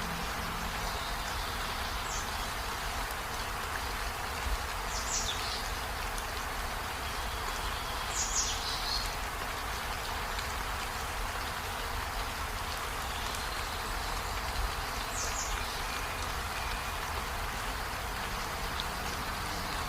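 Steady hiss of rain, with short high bird chirps cutting through four times.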